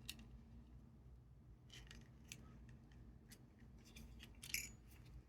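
Faint, sparse light clicks and ticks of small parts and tools being handled at a repair bench, about half a dozen spread through, the loudest about four and a half seconds in, over a faint low hum.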